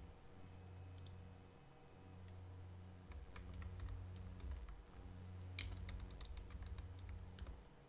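Faint computer keyboard typing: scattered key clicks, coming more often from about three seconds in, over a low steady hum.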